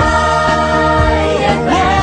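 Radio station theme song playing: a long held note over steady accompaniment, stepping up in pitch about one and a half seconds in.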